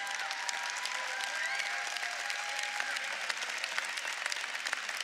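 Church congregation applauding in a large auditorium: steady, dense clapping from a big crowd.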